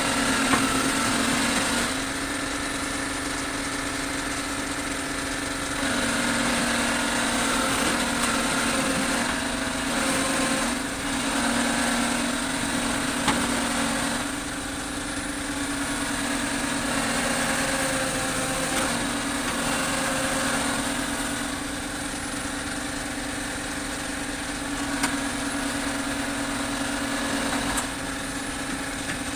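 Heavy diesel engine running steadily, its note and loudness shifting up and down every few seconds.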